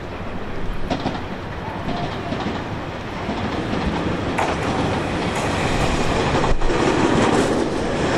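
Tobu 30000 series electric train running, its wheels clacking over rail joints and the running noise growing louder as it comes closer.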